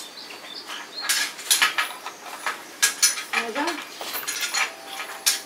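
Irregular clinks and clatters of hard objects, several sharp ringing strikes a second coming in clusters.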